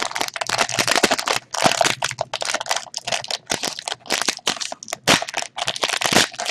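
Foil wrapper of a trading-card pack crinkling and tearing as it is pulled open by hand: a rapid, irregular crackle.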